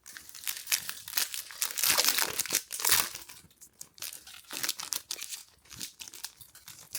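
Plastic trading card packaging crinkling and tearing, a dense run of crackles that is loudest about two to three seconds in, then lighter rustling.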